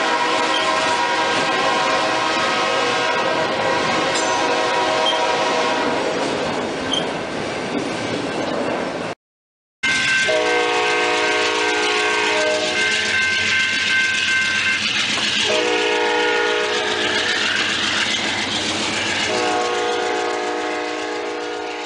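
A freight train of autorack cars rolling past over the rails, with a steady chord of tones that fades about six seconds in. After a brief cut, a passenger locomotive's horn sounds three long blasts as the train approaches.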